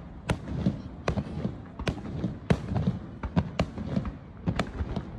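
Aerial fireworks display bursting: a dozen or so sharp bangs at uneven intervals, with a low rumble between them.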